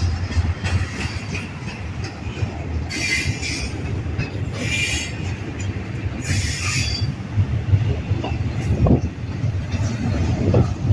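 Freight train rolling past with a steady low rumble, and high-pitched wheel squeal in three short spells about three, five and six and a half seconds in.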